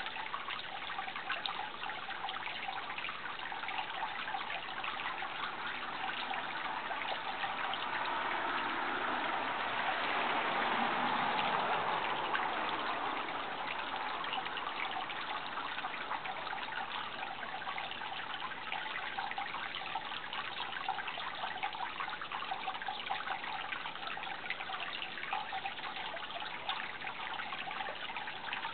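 Running water trickling and splashing steadily, with a brief swell about ten seconds in.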